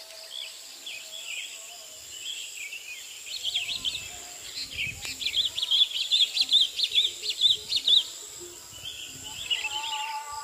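Small birds chirping in quick runs of calls, busiest in the middle, over a steady thin high insect whine. Low bumps and rustles sound alongside, like a camera being handled among grass stalks. Background music fades out at the start and comes back near the end.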